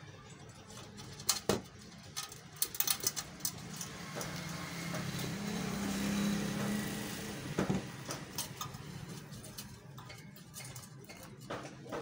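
Light clicks and clinks of a coiled heater element wire and pliers being worked into a clay heater plate, with a low rumble that swells and fades in the middle, a vehicle going past.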